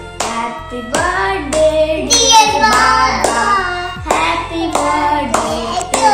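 Two children singing together and clapping along in time, about two claps a second.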